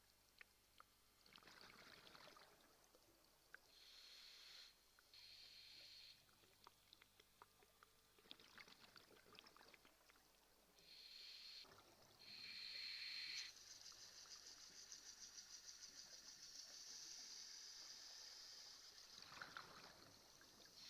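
Faint underwater breathing of a scuba diver: short hisses from the regulator on each inhalation and rushing bursts of exhaled bubbles, with scattered small clicks. Over the last several seconds a steady fluttering hiss of bubbles.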